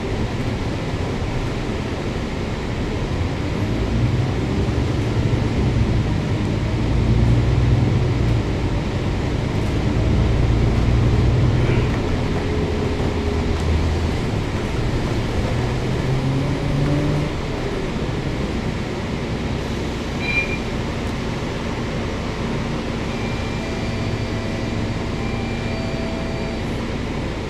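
Volvo B9TL double-decker bus's diesel engine heard from inside the bus, running under load with its low drone stepping up in pitch in the first half, then dropping back about two-thirds in as the bus slows to a stop. A few faint steady high tones come in near the end.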